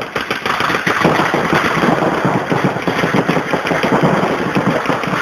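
Reball markers firing rapid, overlapping strings of compressed-air shots, a dense continuous crackle of shots, echoing in a large hall.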